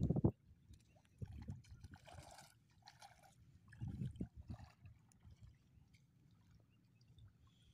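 A person wading into a river, legs sloshing and splashing through the water in short bursts. A few low thumps are heard as well, the loudest right at the start.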